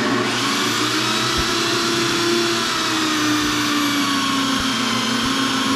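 A steady motor-like whine over a hiss, its pitch wavering slowly, with a few faint low thumps.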